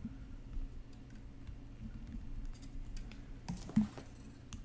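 Small scattered clicks and soft handling noise as thin metal wire is coiled by hand around a wire-wrapped ring band. One sharper click comes a little under four seconds in.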